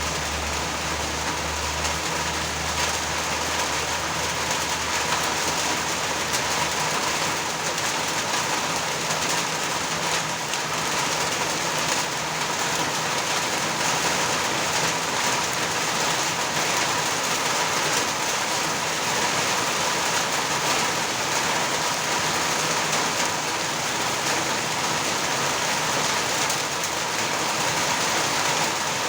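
Steady rain falling. A low rumble runs underneath for the first several seconds and fades out about seven seconds in.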